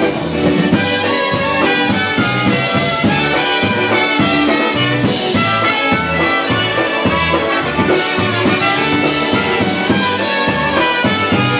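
Live Polish-American polka band playing an instrumental passage with a steady dance beat.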